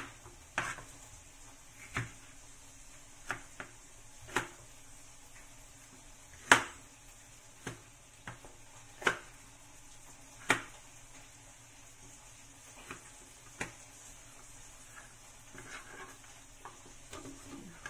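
Kitchen knife cutting a red bell pepper on a plastic cutting board: single knocks of the blade on the board at irregular intervals, the loudest about six and a half seconds in, over a faint steady hiss.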